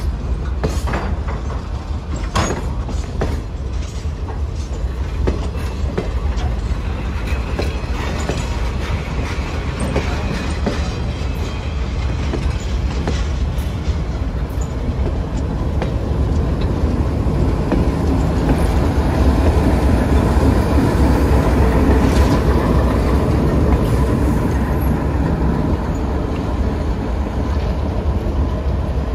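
Chicago & North Western RSD5 diesel locomotive shoving a train of cabooses slowly past, the wheels clicking over rail joints under a steady rumble. The locomotive's engine grows loudest as it passes, in the second half.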